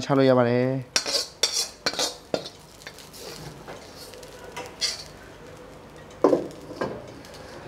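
Metal ladle clanking and scraping against a wok while glass noodles are stir-fried, with a faint sizzle underneath. There is a quick run of sharp clanks in the first couple of seconds, then a few scattered knocks, one of them louder near the end.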